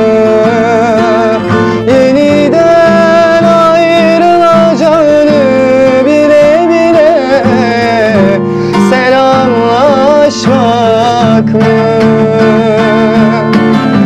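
A man singing a Turkish song live in long, wavering held notes, accompanying himself on a strummed steel-string acoustic guitar.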